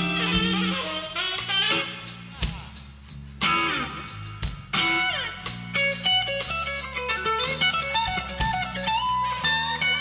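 Live blues band playing an instrumental break: an electric guitar solo with fast runs and string bends over bass and drums.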